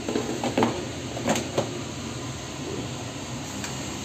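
Plastic air fryer basket sliding into its drawer, with a few sharp clunks and clicks in the first second and a half as it is pushed home.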